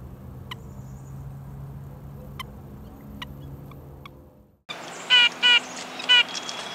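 Red-breasted nuthatch giving its nasal calls, three short loud ones in quick succession starting about five seconds in, followed by a thin steady high note. Before them there is only a faint low hum with a few faint high ticks.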